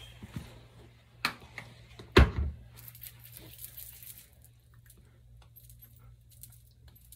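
Small hard objects being handled and set down: a click, then a loud sharp knock about two seconds in, followed by light clinking and rattling that dies down after about four seconds. A steady low hum runs underneath.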